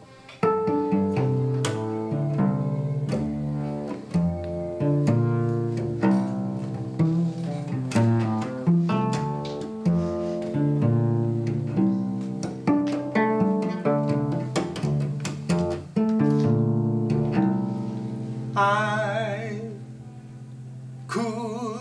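Solo cello played pizzicato: a quick, rhythmic line of plucked notes over low bass notes. A few high wavering notes come near the end.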